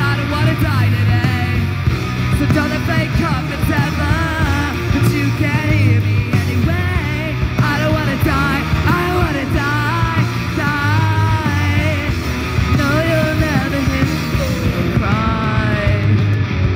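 Live punk rock band playing loudly: a singer singing over electric guitars, bass guitar and drums.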